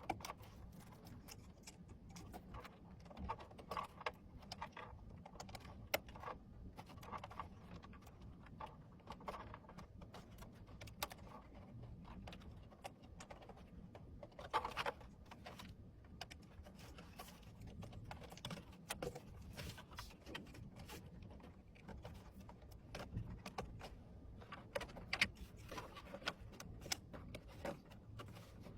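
Irregular light clicks, taps and small clatter of hard parts being handled during PC assembly, over a low steady hum.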